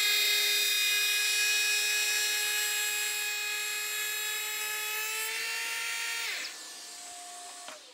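Bosch GHO 12V-20 cordless brushless planer running at full speed with a steady high whine, set for a 1 mm cut. About six and a half seconds in the main whine stops, and a fainter whine carries on briefly before falling away near the end.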